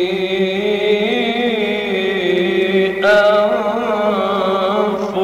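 A man chanting Quranic recitation in the melodic tajwid style, holding one long, ornamented note across the whole stretch, then stepping up to a higher pitch about three seconds in.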